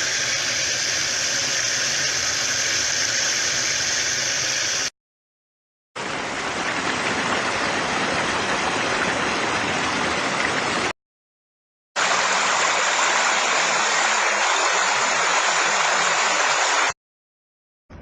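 Three separate recordings of running water, each a steady rush lasting about five seconds and cut off abruptly, with a second of silence between them.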